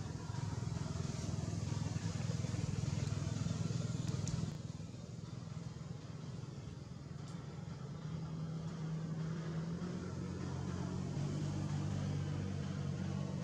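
A low, steady motor hum, dropping in level about four seconds in and shifting in pitch from about eight seconds on.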